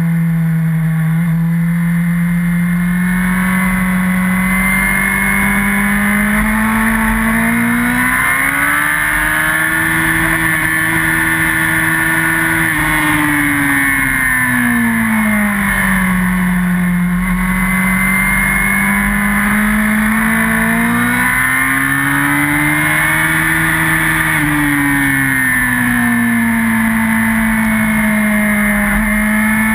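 Yamaha R1 inline-four sportbike engine at high revs on a racetrack. Its pitch climbs over a few seconds as the bike drives out of a corner, holds, then falls as the rider rolls off. This happens twice.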